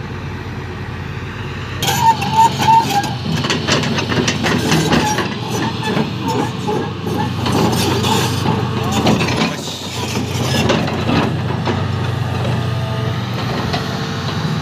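Tata Hitachi Zaxis 370 tracked excavator's diesel engine running steadily while the machine travels, with repeated clanks and knocks from its steel crawler tracks.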